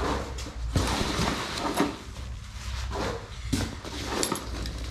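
Foam packing peanuts rustling in a cardboard box as hands dig through them, with a few light knocks from loose metal clamps inside.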